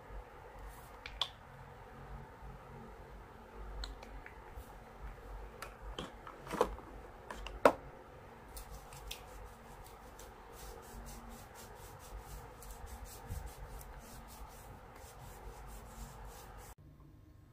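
Soft rubbing and rustling of hands working through long hair and clothing, with scattered light clicks and two sharper taps about six and a half and seven and a half seconds in. The sound drops away suddenly near the end.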